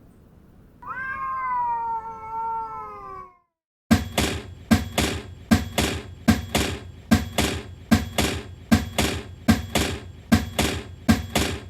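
A cat's long, slightly falling meow, then after a short pause a steady run of short sharp hits, about two a second.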